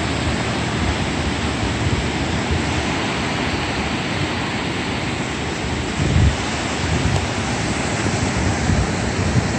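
Ocean surf washing in below, with wind buffeting the microphone in low gusts, the strongest about six seconds in.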